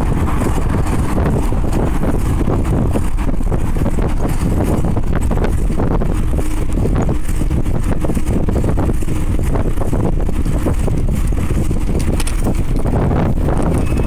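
Loud, steady wind buffeting the microphone of a camera riding on a moving bicycle's handlebars.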